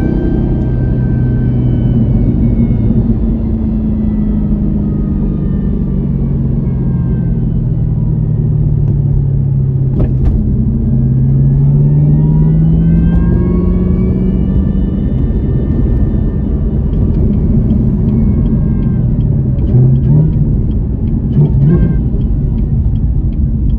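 Car engine and road rumble heard from inside a moving car, the engine's pitch falling and rising as it slows and accelerates. Evenly spaced ticks run through the last few seconds.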